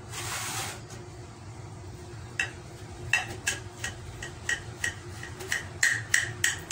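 A kitchen knife slicing through a pan-fried ampalaya (bitter gourd) omelette on a ceramic plate: a string of short clicks and taps of the blade on the plate, a few a second, coming more often near the end. A short scraping hiss at the very start.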